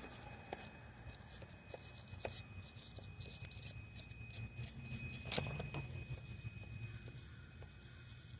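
A wire brush scrubbing the lead terminal posts of a truck battery in quick, irregular scratching strokes, cleaning them for a shiny connection.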